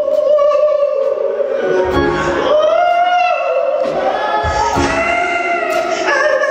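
A woman singing a gospel solo into a microphone, in long held notes with vibrato that climb higher through the phrase.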